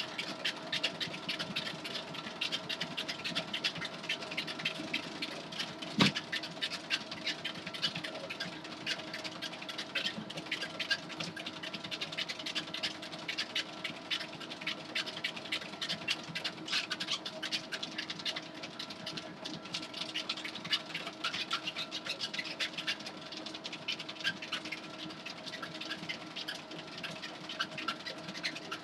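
A motorised treadmill runs with a steady hum while a Jack Russell terrier trots on the belt, its claws clicking and pattering rapidly. There is one sharper knock about six seconds in.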